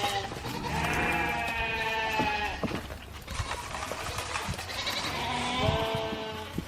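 Sheep bleating: two long, wavering bleats, one about a second in and another near the end, with the tail of an earlier bleat at the very start.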